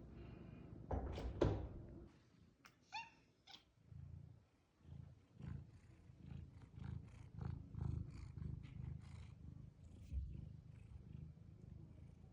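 Domestic cat purring close up, the low rumble pulsing about twice a second with its breaths. About a second in there is a louder brief noise, and near three seconds two short pitched sounds.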